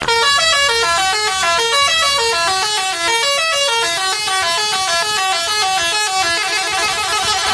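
Indonesian bus 'telolet' horn, a set of air-horn trumpets playing a quick melody of short stepped notes, several tones at once, climbing and falling. It starts suddenly and grows busier near the end.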